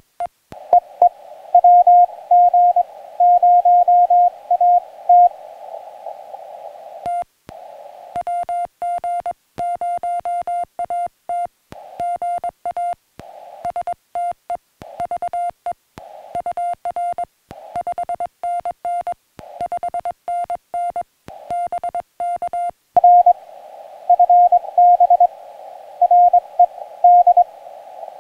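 Morse code (CW) on a portable ham radio: a single steady tone keyed on and off in dots and dashes, alternating between the sidetone of the operator's own sending and other stations' replies. The clean keyed stretches run through the middle. Near the start and again in the last few seconds the tone comes through a narrow band of receiver hiss.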